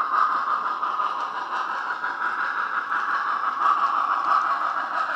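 Steam locomotive sound from a DCC sound decoder with the Wheeltappers sound file, played through a small speaker in a Hornby K1 model's tender: a steady, even hiss of steam at rest.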